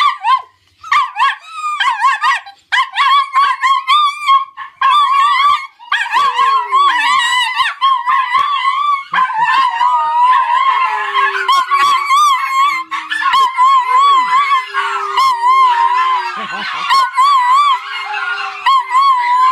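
Several Chinese Crested dogs howling together on command, a warbling howl joined by more voices from about nine seconds in, including a lower, steadier one.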